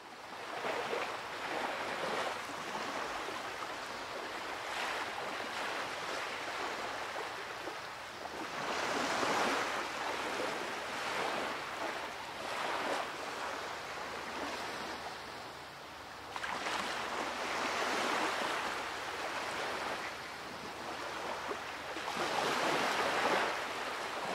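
Ocean surf: waves washing in and drawing back, the rushing noise swelling and ebbing every few seconds.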